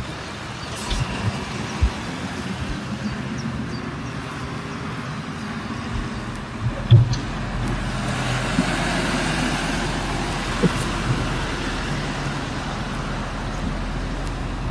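Motor vehicle noise with a steady low hum, swelling to its loudest about eight to eleven seconds in and then easing off, with a few light knocks.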